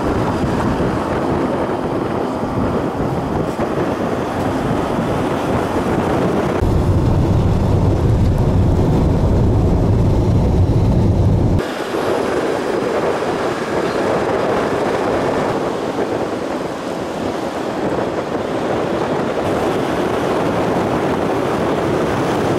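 Road noise inside a moving minivan: a steady mix of engine, tyre and wind noise. The sound shifts abruptly several times, with a deeper rumble for about five seconds in the middle.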